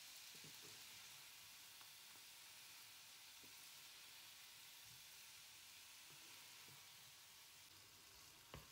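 Vegetables faintly sizzling in a frying pan as they are stirred with a wooden spoon, with a few soft scrapes and one sharp knock near the end.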